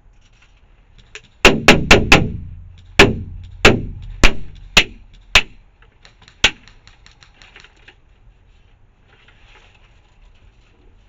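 Airsoft rifle firing single shots: about a dozen sharp, irregularly spaced cracks over five seconds, close and loud, each with a short echoing tail, then faint rapid ticking.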